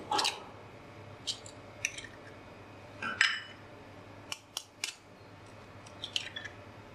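Eggs being cracked open with a knife over a glass bowl: sharp taps and cracks of eggshell, a dozen or so short clicks coming irregularly, with a cluster about four and a half seconds in and another near the end.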